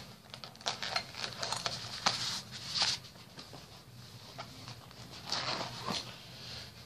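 Fabric bags being handled: rustling with small clicks and knocks as a zippered fabric pouch and a backpack are moved about. The sounds come in a run of short bursts over the first three seconds, and there is a longer rustle a little after five seconds.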